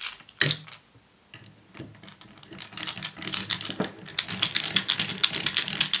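Screwdriver driving a round-headed screw into wood: a few scattered knocks, then from about halfway a quick, even run of clicks, about seven a second, as the screwdriver's ratchet turns.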